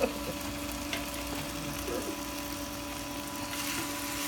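Induction cooktop humming steadily under a pan of stir-fried noodles and seafood, with a faint frying hiss from the pan that grows brighter about three and a half seconds in.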